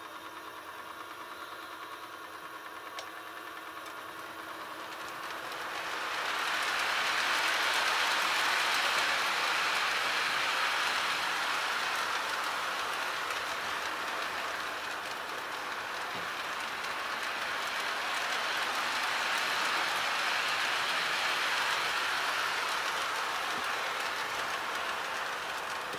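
Lionel 0-6-0 O gauge electric toy train running around a loop of three-rail track, with a steady rolling rattle from wheels and cars. The sound swells about five seconds in as the train comes near, eases off midway and swells again later.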